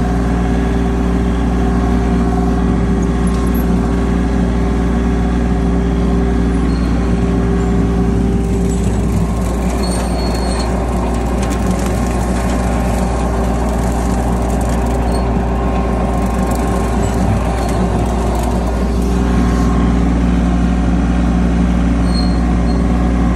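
Yanmar compact tractor's diesel engine running steadily under way. From about nine seconds in to about nineteen its even note turns rougher and noisier, then it steadies again and gets slightly louder.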